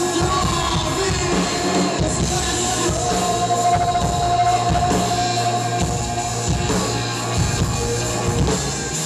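Live rock band playing: a man sings into the microphone, holding one long note in the middle, over drums, keyboards and electric guitar.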